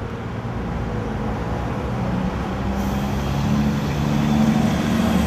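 City bus moving past close by, its engine running with a low hum that rises a little in pitch midway. A faint hiss joins about three seconds in.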